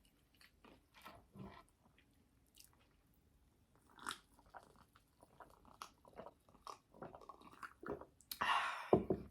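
A person chewing crunchy potato chips, with a scatter of small crisp crunches and a louder burst of crunching near the end.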